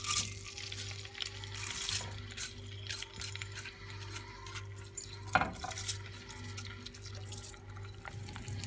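Wet, freshly washed rice sizzling and crackling as it is tipped into hot ghee and corn oil in a pot and scraped in with a silicone spatula, with a single sharp knock about five seconds in. A low steady hum sits under it.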